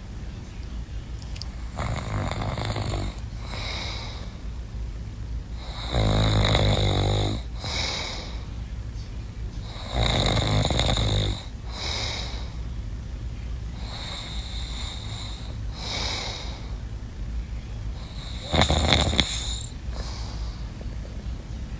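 A sleeping person snoring. Three loud, low snores come spread through the stretch, with softer breaths about every two seconds between them.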